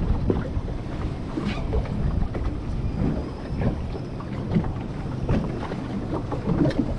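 Wind buffeting the microphone over waves slapping against the hull of a drifting boat, with a few faint clicks.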